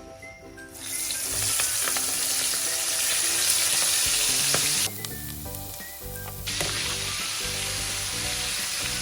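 Prawns coated in cornflour sizzling as they fry in hot oil, in two stretches that each cut off abruptly.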